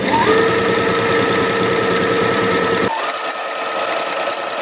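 Brother electric sewing machine running fast on a zigzag stitch, its needle punching through paper with no thread in the machine: a rapid, even clatter over a motor whine. About three seconds in, the deeper hum and whine drop away and the stitching carries on lighter.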